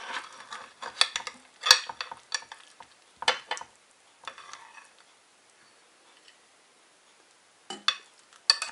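A metal spatula and spoon scoop baked chicken-and-mushroom julienne out of a glass baking dish, with scrapes and clinks of metal on glass. The loudest clink comes about two seconds in, the middle goes quiet, and the scraping picks up again near the end.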